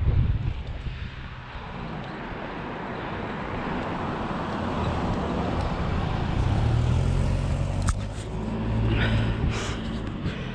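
Wind buffeting an action camera's microphone over the rolling rumble of a mountain bike ride, swelling and easing, with a few sharp clicks and rattles near the end.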